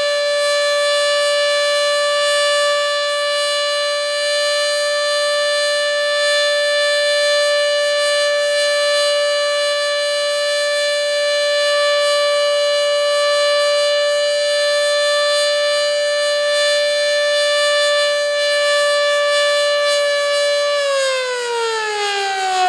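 Sterling 2V8 electro-mechanical outdoor warning siren sounding the steady Alert tone, a single held pitch rich in overtones. About 21 seconds in the pitch starts to fall as the siren winds down at the end of the signal.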